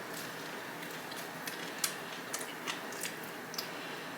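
Close-miked chewing of a sandwich, heard as a scatter of sharp, irregular wet mouth clicks over a steady low hiss.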